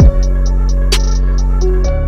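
Background electronic music: a deep kick drum at the start, a held bass note, quick steady hi-hat ticks and a single sharp snare or clap hit about a second in.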